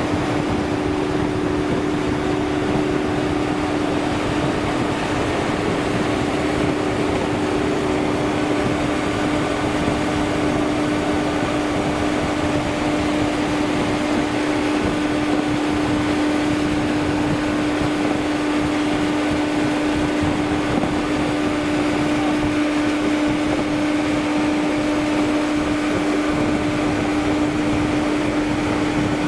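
BOSS railcar mover running close by: a steady mechanical drone with one constant hum-like tone held through it.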